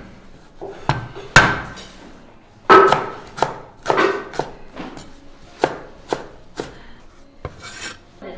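Chinese cleaver chopping ginger on a wooden cutting board: irregular knocks, a few much louder than the rest, ending with a short scrape as the blade scoops up the chopped pieces.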